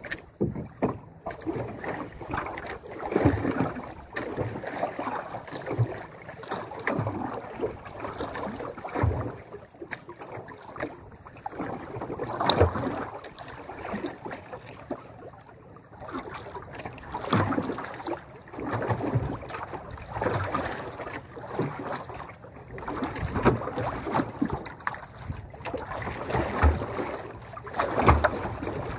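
Sea water lapping and slapping against the hull of a small outrigger boat in uneven surges, with occasional knocks on the boat.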